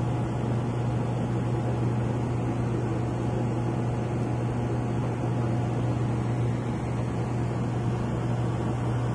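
Aquarium air pump humming steadily, a low mains-pitched buzz with a hiss of air behind it.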